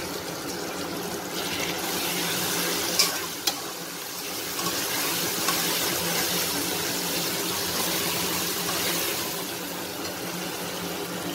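Chopped tomato-and-onion masala sizzling steadily in oil in an aluminium kadhai as a steel spatula stirs it, with two brief clicks about three seconds in.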